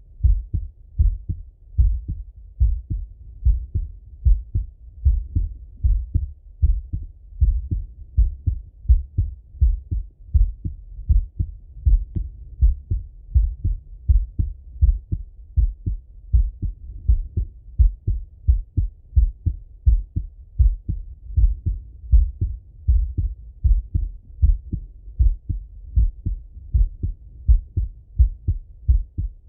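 A man's heartbeat heard through a Littmann stethoscope: a steady, slow lub-dub, about one beat a second, made of dull low thumps.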